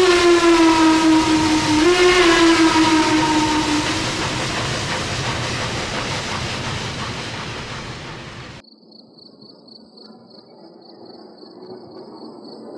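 A train whistle blowing, a second blast about two seconds in, its pitch sagging a little, over the noise of a running train that slowly fades away. The train sound cuts off suddenly about two-thirds of the way through, leaving a faint high warbling tone.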